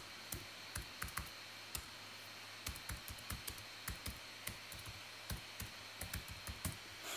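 Typing on a computer keyboard: irregular, light key clicks, with a short pause about two seconds in.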